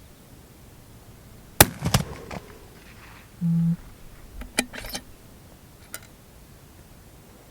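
A single sharp rifle shot, then a run of metallic clicks and rattles typical of a target rifle's bolt being worked, with a short low buzz about midway.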